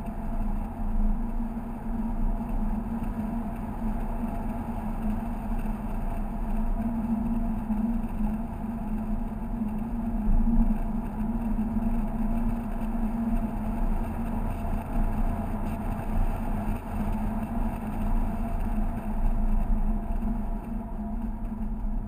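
Mazda MX-5 cruising at a steady speed: a constant engine drone under road and wind noise.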